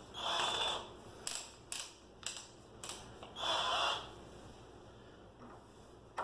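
Hyper Tough 18-volt cordless drill running in two short bursts with a steady whine, one near the start and one about three and a half seconds in, with a few sharp clicks between them.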